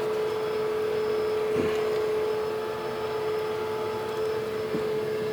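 A steady machine hum with one constant whine, like an electric motor running without change, and a small knock about one and a half seconds in.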